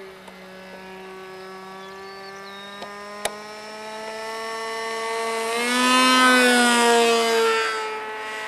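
Two-stroke Thunder Tiger .46 glow engine of an RC model airplane flying overhead, a steady buzzing drone. It grows louder and rises in pitch as the plane passes about five to six seconds in, then drops back. There is a single sharp click about three seconds in.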